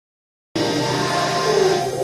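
Background music, starting suddenly about half a second in.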